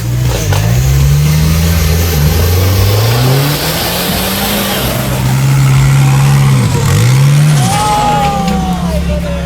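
Off-road 4x4 engine revving hard, its pitch climbing and dropping several times and held high for a couple of seconds around the middle.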